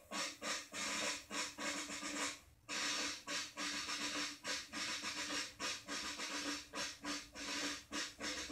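Military snare drum beaten in a steady march rhythm, single strokes about three a second, running together into short drum rolls.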